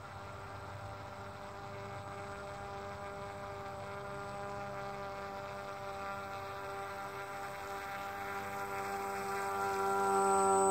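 Hand-made RC fan boat's motor and air propeller buzzing at a steady pitch, growing louder as the boat approaches and passes close near the end.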